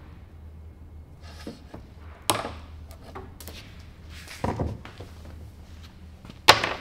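Heavy 4-gauge stranded copper battery cable being cut with a cutter and handled on a wooden workbench: three separate sharp clicks and knocks, about two, four and a half and six and a half seconds in, the last the loudest.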